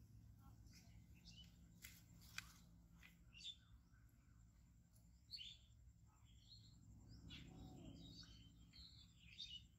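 Near silence with faint, scattered bird chirps and a couple of sharp light clicks about two seconds in, over a low steady background hum.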